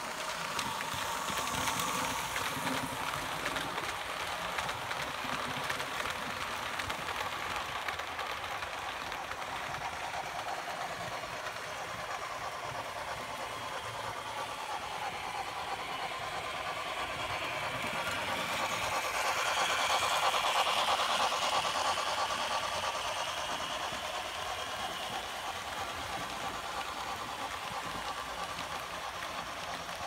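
H0 model trains running on the layout's track, a steady rattling run of wheels and motors that swells louder around two-thirds of the way through and then eases off again.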